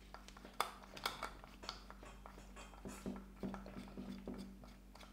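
Clicks, taps and knocks of hard metal and plastic parts being handled as the stator of an oscillating multi-tool is tugged at to pull it out of its housing. The sharpest clicks come about half a second and a second in, with a run of duller knocks a little past the middle.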